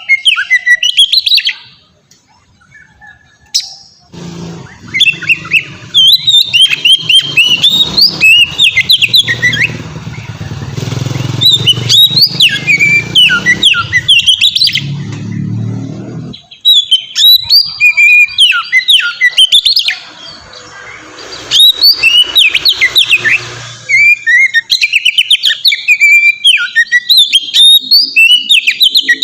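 Oriental magpie-robin (kacer) singing a long, varied song of quick whistles and chirps, in continuous open song, pausing briefly about two seconds in. A low hum runs beneath the song for stretches in the middle.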